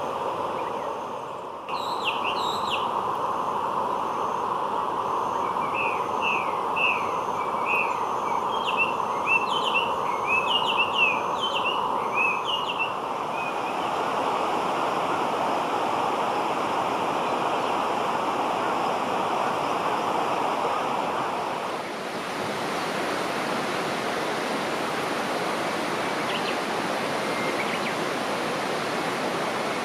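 Steady rush of running water, with a small bird singing a quick series of chirps over it in the first half. About two thirds of the way through the rush turns brighter and hissier.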